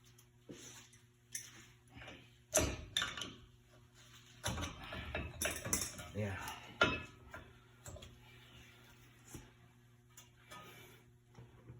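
Metal parts and hand tools clinking and clattering as they are handled, with a run of sharp knocks, the loudest a few seconds in and again around the middle.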